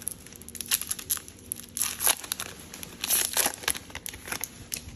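A wrapper of a 2020 Topps Update baseball card pack being torn open and crinkled by hand: a run of sharp crackles and tearing rustles, loudest about two seconds in and again around three seconds in.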